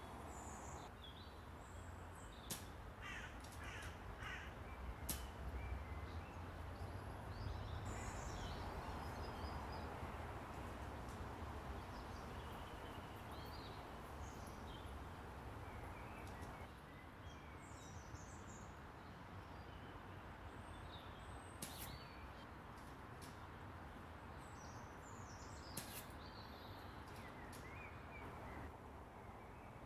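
Quiet outdoor ambience: birds calling on and off, crows among them, over a steady low rumble. A few sharp, brief clicks stand out, the clearest about a fifth of the way in, twice near the end of the second third, and once near the end.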